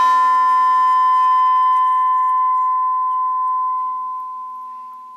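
Uncoated 1/8-inch stainless steel panel ringing after being struck, a clear bell-like tone with many overtones that fades slowly. The highest overtones die away within the first couple of seconds while the main tone rings on. The long ring shows that the bare, undamped plate is doing nothing to damp its own vibration.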